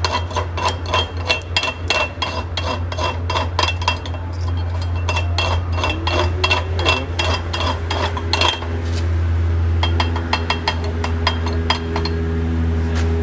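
Hammer chipping slag off a flux-core weld bead on steel plate: quick metallic clinks, about three a second, that thin out about eight seconds in to a few scattered taps. A steady low hum runs underneath.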